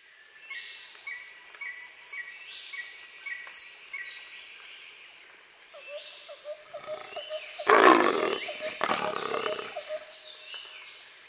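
Rainforest ambience of repeated high bird and insect calls, with a jaguar's deep growl sounding twice, about eight and nine seconds in.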